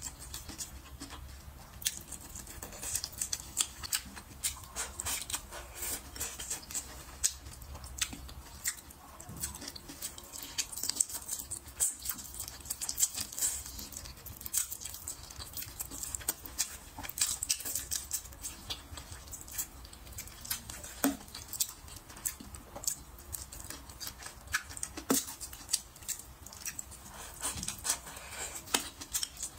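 Close-miked eating sounds: a steady patter of wet clicks and smacks from chewing and biting braised meat.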